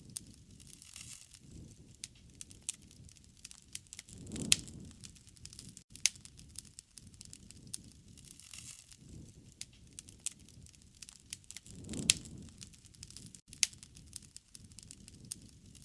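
Wood fire crackling, with irregular sharp pops and snaps over a low rumble. About four and a half seconds in and again about twelve seconds in, the rumble swells and a loud snap stands out.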